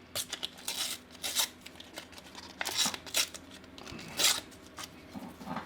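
Paper Panini sticker packets and stickers being handled and torn open by hand: a series of short, irregular rustles and tears.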